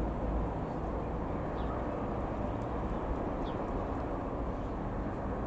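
Steady drone of a Piper PA-28-180 Cherokee's four-cylinder Lycoming piston engine and propeller as the light aircraft flies over.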